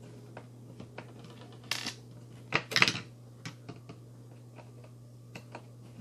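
Small, hard clicks and clatter of tools and parts being handled on a workbench, with a louder cluster of knocks about two and a half to three seconds in.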